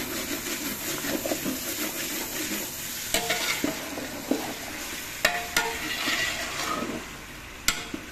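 Masala-coated chicken pieces sizzling and frying in a metal pot while a metal spatula stirs and scrapes them, with about three sharp clicks of the spatula knocking against the pot.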